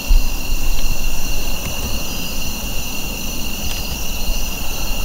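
Steady, high-pitched chorus of crickets or similar insects, over an uneven low rumble of the camera being handled and moved.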